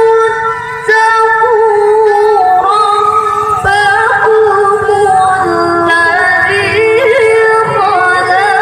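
A woman's voice reciting the Quran in the melodic tilawah style into a microphone: long held notes decorated with quick wavering melismas. There is a short breath break about half a second in.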